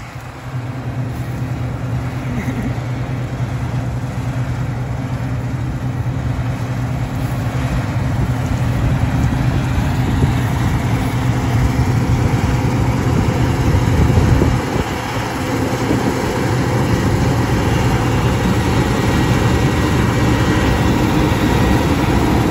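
Claas Lexion 660 combine harvester running while it harvests grain: a steady hum from its engine and threshing machinery. The hum grows louder as the machine approaches, with a brief dip about two-thirds of the way through.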